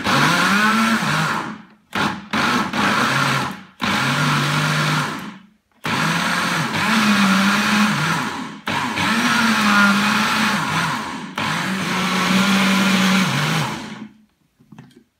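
Electric countertop blender puréeing chunks of peeled mango, switched on and off in about seven short runs of one to three seconds. Each run starts with a rising whine as the motor spins up, and the motor stops about a second before the end.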